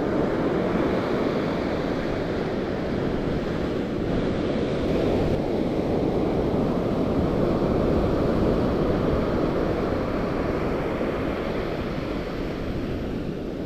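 Ocean surf breaking on a beach, a steady rush of noise, with wind buffeting the microphone.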